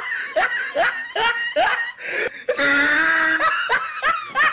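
A person laughing in quick, short bursts that rise in pitch, with a longer held voiced note about halfway through.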